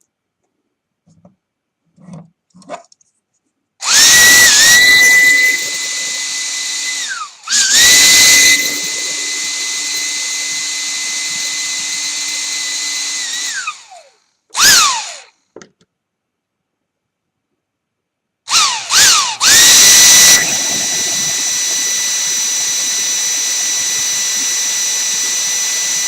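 Small electric motor from a fan, run from a laptop power adapter as a load, spinning up with a rising whine and a steady high-pitched hum. It is switched on and off several times, each stop winding down in pitch. The test shows the adapter does not hold 19 volts under load.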